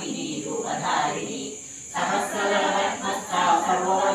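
Priest's voice chanting Hindu Sanskrit mantras in a sung recitation, with a brief pause about a second in.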